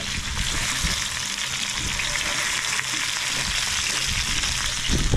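Crumbed barramundi pieces shallow-frying in a pan of very hot oil: a steady, dense sizzle, with a low rumble underneath.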